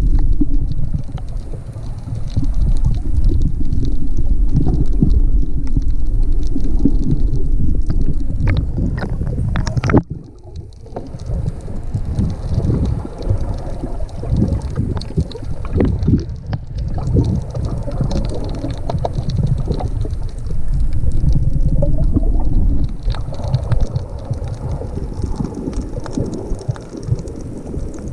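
Muffled low rumbling and gurgling of sea water sloshing around a camera held just under the surface, with scattered crackles. It drops off suddenly about ten seconds in, then builds again.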